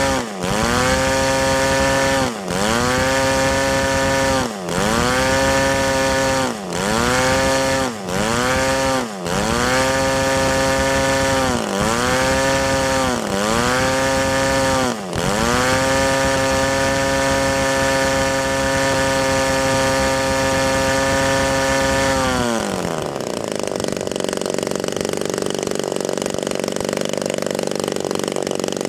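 Melody MLD-35 two-stroke gasoline model-airplane engine running at high speed on a break-in run, its speed dipping briefly and picking back up about eight times before holding steady. About 22 seconds in the pitch drops sharply as it falls back to a low idle.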